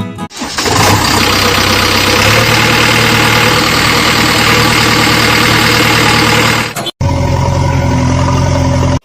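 Loud engine running, cutting off abruptly about seven seconds in and switching straight to a steadier engine hum for the last two seconds.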